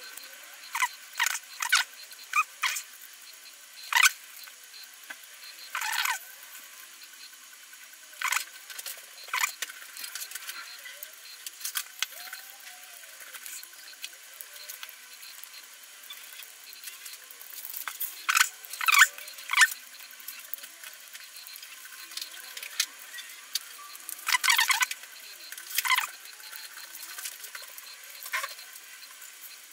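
Small plastic parts of a clockwork toy car clicking and scraping as they are handled and fitted back together by hand: irregular sharp clicks and short scrapes, busier about two-thirds of the way through.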